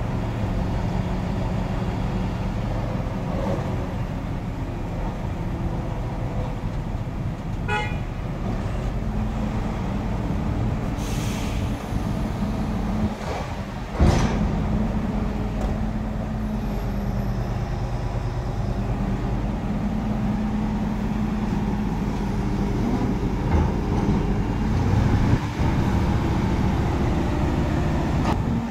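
Heavy diesel engines of a container truck and a mobile crane running steadily. About halfway through comes a single sharp metallic clank, and a brief hiss a few seconds before it.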